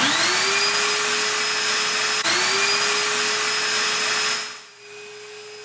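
A vacuum dust extractor is switched on and its motor whines up to speed over a loud rush of air. About two seconds in it dips briefly and spins up again. Near the end the rush drops away, leaving a quieter steady hum.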